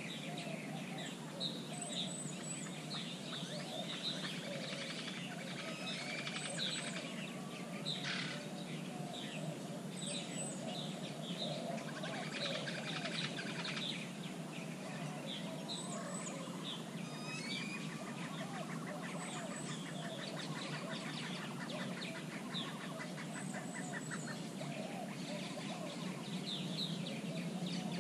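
A mix of wild birds calling: many short high chirps and whistles, lower repeated calls, and a fast rattling trill for a few seconds past the middle, over a steady low hum.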